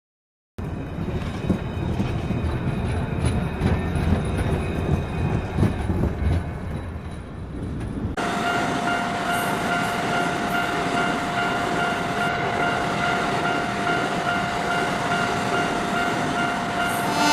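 A train running, a dense low rumble with irregular clatter from the wheels. About eight seconds in, the sound switches abruptly to a steady high-pitched tone with overtones over the train noise.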